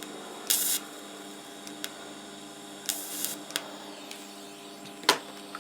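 TIG welder striking short arcs on the rusty steel fuel tank: two brief hisses of under half a second each, with a few small clicks and one sharp click near the end, over a steady electrical hum.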